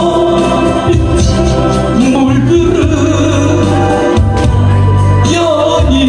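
A man singing a Korean trot song into a microphone over a backing track with a steady bass line, holding long, sliding notes.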